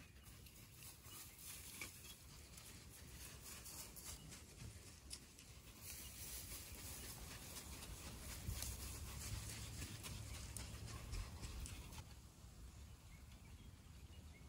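Faint, quick patter of African wild dogs' paws on a sandy track as the pack trots and runs close past. A low rumble swells for a few seconds past the middle.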